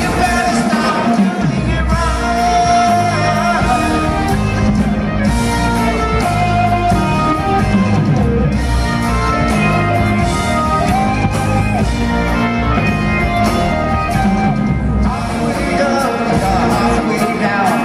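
Live rock band playing loudly in a large hall: a Les Paul-style electric guitar playing lead lines over bass and drums.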